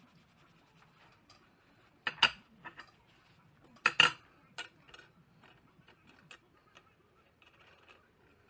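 Machined steel hydraulic-cylinder parts being set down on a steel workbench: two sharp metallic clanks about two seconds apart, followed by a few lighter clicks and clinks as pieces are shifted around.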